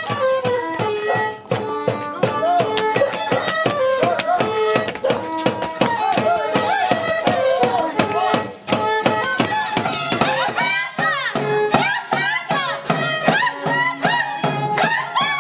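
Traditional Andean festive music for the Santiago fiesta: a wavering, fiddle-like melody over a steady drum beat. It grows fuller and higher about ten seconds in.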